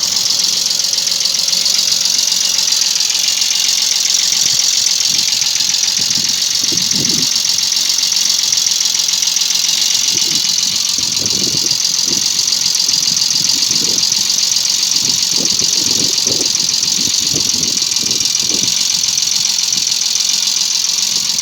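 Toyota 1G-FE BEAMS inline-six running with a steady, fast metallic ticking knock from the valve train. The knock comes from exhaust valve clearances opened up to as much as a millimetre, which the owner puts down to worn-out tappet bucket bores.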